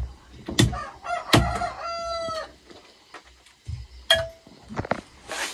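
Several sharp chops of a large knife cutting dried buffalo meat on a wooden chopping stump. A rooster crows once about two seconds in, and a short chicken note follows a couple of seconds later.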